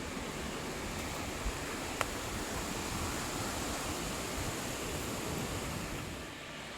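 Steady, even rushing noise of outdoor nature ambience, with one brief faint click about two seconds in.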